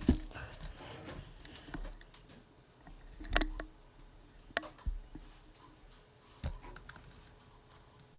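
Scattered clicks and knocks from handling things at a computer desk, a second or more apart, the loudest about three seconds in, over faint room tone. The sound cuts out abruptly at the end as the microphone is muted.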